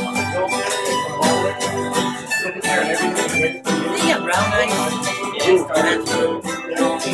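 Two acoustic guitars strumming chords and a mandolin picking the tune of an old Polish waltz, played live together in an even rhythm.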